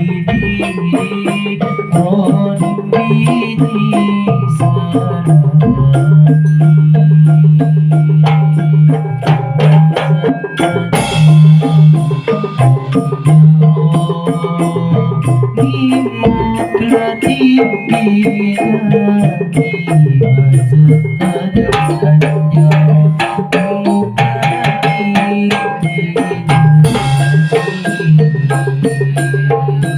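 Patrol music ensemble rehearsing: a fast, dense rhythm of drums and wooden percussion over a held low melody line and higher pitched notes.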